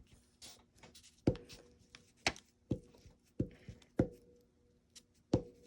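About six sharp, irregularly spaced taps on a hard work surface, with faint paper rustling in between, as paper pieces are handled and pressed into place.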